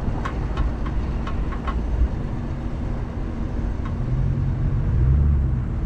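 Jeep Grand Cherokee driving slowly over a sandy wash, heard from its hood: a steady low engine rumble with tyre and wind noise, and light irregular ticks in the first two seconds. The engine gets louder about four seconds in.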